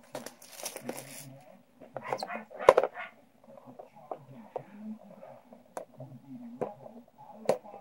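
Hands handling and unwrapping a plastic DVD box set: rustling at first, then scattered sharp clicks and taps, the loudest a little under three seconds in.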